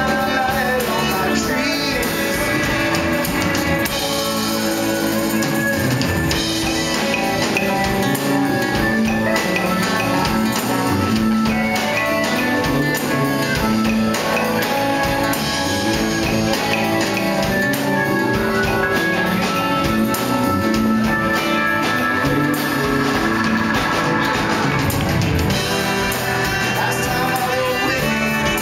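Live band music heard from among the audience: a man singing over acoustic guitar and fiddle, with the band playing along at a steady beat.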